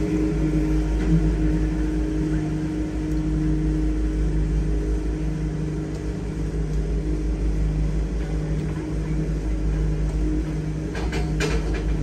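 Engine of a Wood-Mizer LT70 sawmill running steadily with an even, pulsing hum, the saw head not cutting. A few sharp knocks come near the end.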